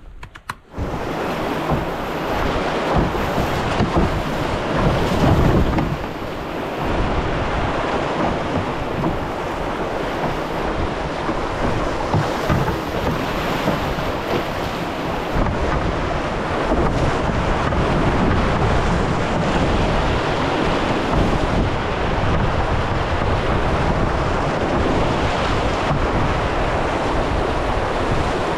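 Whitewater rushing and churning around a canoe running Class I–II rapids, a loud steady rush that starts abruptly just under a second in.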